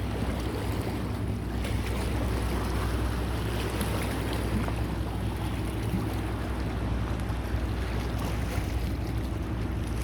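Steady low hum of a running engine, with wind buffeting the microphone and sea water.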